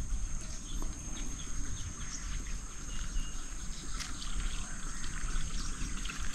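Rural outdoor ambience: a steady high-pitched insect drone with scattered short bird chirps over a low, uneven rumble.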